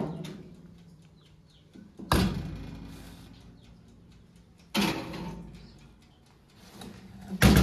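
Countertop oven door being handled and a metal cake tin set on the oven's wire rack: four sharp metallic clanks, each ringing briefly and dying away, the loudest near the end.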